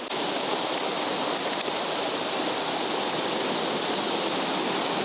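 Waterfall pouring, a steady dense rush of water that comes in suddenly at the start and then holds even.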